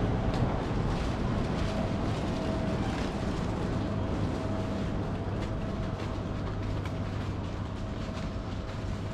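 Steady low mechanical hum of a large airport baggage hall, ventilation and machinery, with a faint steady whine and a few light ticks of footsteps.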